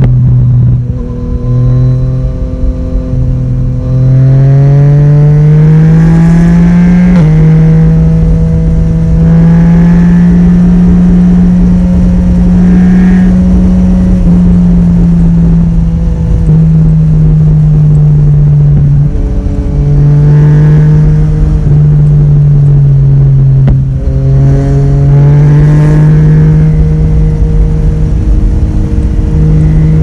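Yamaha Tracer 900 GT's three-cylinder engine through its Akrapovic exhaust at highway speed. The engine note climbs three times as the throttle is opened, drops sharply once at a shift, and holds steady while cruising, over a constant rush of wind on the microphone.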